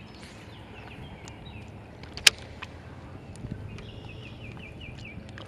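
Wind buffeting on a lakeshore, with one sharp click about two seconds in and a quick run of short, high, falling chirps from a bird near the end.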